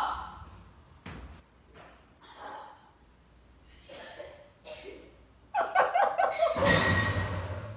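Muffled laughter and breathing from someone with a mouthful of marshmallows. About five and a half seconds in it swells into a loud burst of laughing, then a harsh, noisy outburst that dies away near the end.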